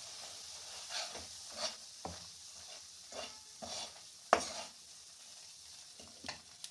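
Turmeric powder frying in hot ghee in a kadhai, a steady soft sizzle, stirred and scraped against the pan about half a dozen times, the loudest scrape a little past the middle.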